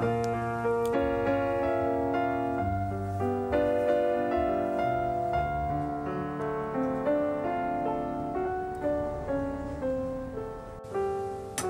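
Background piano music: notes and chords struck at an unhurried pace, each ringing and fading away.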